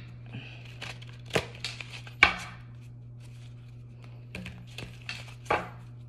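Tarot cards being handled: a handful of sharp, irregular taps and slaps of the deck on a table, with a steady low hum underneath.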